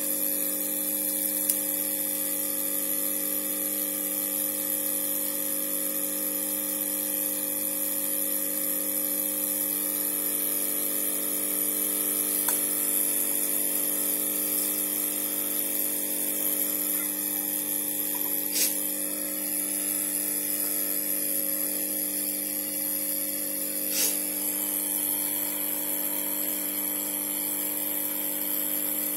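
Hot air rework station blowing steadily while a replacement VRM driver IC is soldered onto a motherboard: an even airy hiss over a low motor hum, with two short clicks in the second half.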